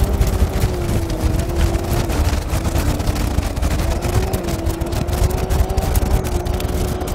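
Side-by-side UTV engine running at a steady cruising speed: an even drone whose pitch dips slightly and comes back up, over a heavy low rumble of the ride, with scattered clicks.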